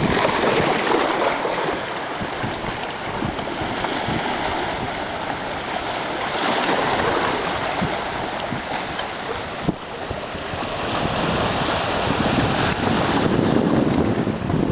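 Small sea waves lapping and splashing against shoreline rocks, with wind noise on the microphone. There is a single brief knock near ten seconds in.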